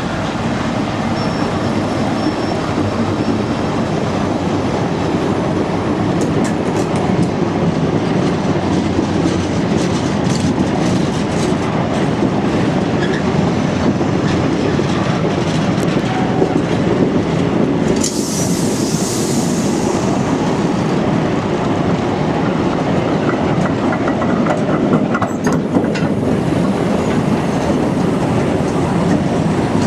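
Freight train of tank wagons rolling past close by behind a Colas Rail Class 70 diesel locomotive: a steady rumble of wheels with clickety-clack over the rail joints. About 18 seconds in there is a brief high hiss.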